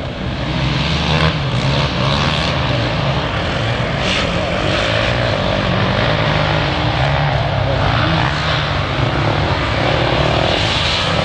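Sport quad (ATV) engine running under throttle, its note rising and falling as the rider works across sandy, uneven track.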